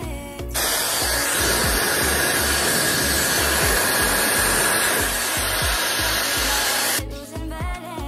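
LLANO high-speed hair dryer blowing on its cooling setting: a steady rush of air with a faint whine. It switches on about half a second in and off about seven seconds in. Background music with a steady beat plays underneath.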